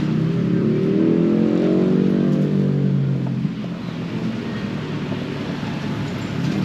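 Motor vehicle engine rising in pitch as it speeds up, then falling away within about three and a half seconds, over a steady low engine hum.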